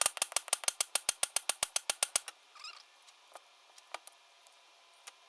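Rapid run of sharp metal-on-metal hammer strikes, about nine a second for two seconds, driving the old rear axle seal out of an Allis-Chalmers 190XT's outer axle retainer; then a few faint scattered clicks.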